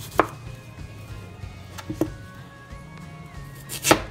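Knife chopping through peeled yam onto a plastic cutting board: a sharp chop just after the start, a quick pair of chops about two seconds in, and the loudest chop near the end, over soft background music.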